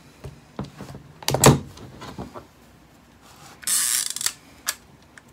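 Argus C33 rangefinder camera being handled and its back opened: a few small clicks, a louder knock about a second and a half in, a brief scraping rustle around four seconds, then a couple more light clicks.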